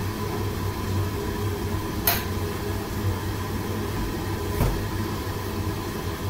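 Steady low roar of a commercial gas wok range and kitchen ventilation running. Two sharp clinks come through it, the louder about two seconds in and a softer one a few seconds later.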